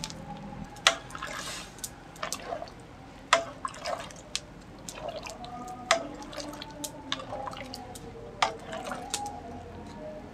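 Water sloshing and dripping in a metal pot as papaya flowers and turkey berries are stirred in it, with short gurgling blips and a dozen or so sharp clicks scattered through.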